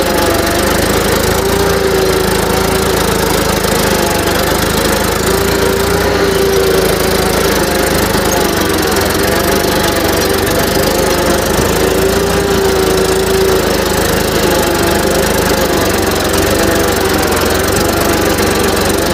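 Eicher 480 tractor's diesel engine running steadily under load while pulling a disc plough through dry soil.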